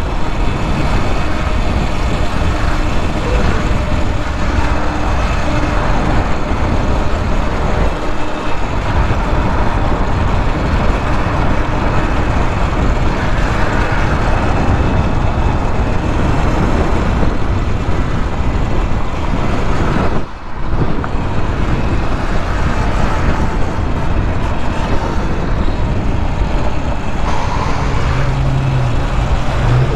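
Wind rushing over the microphone while riding, a loud, steady, fluttering rush that drops out briefly about twenty seconds in.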